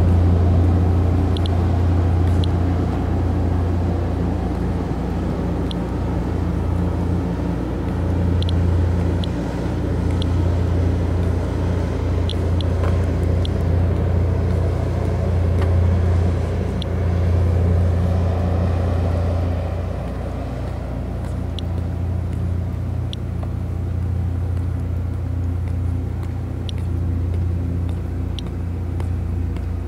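A steady low diesel hum from the large moored ferry's engines, running throughout. Over it, an Inspector+ Geiger counter chirps at scattered, irregular moments, a couple of dozen times. Each chirp is one detected count at a background level of about 0.1 µSv/h.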